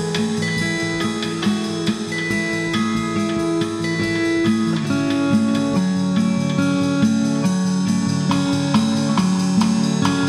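Background music: an acoustic guitar picking a repeating pattern at a steady pulse.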